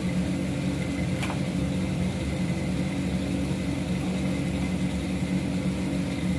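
Steady low machine hum with no change in level, with a single short click about a second in.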